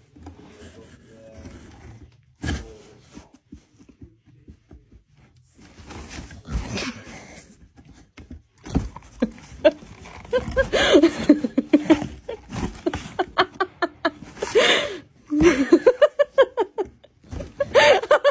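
A person laughing in repeated short bursts through the second half, with a few dull knocks earlier on.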